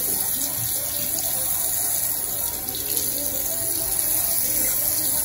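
Bathroom faucet running steadily, its stream of water splashing into a ceramic sink basin.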